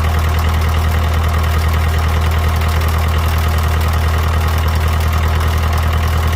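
Fordson Power Major tractor engine idling steadily and running clean, freshly started after standing unused for months.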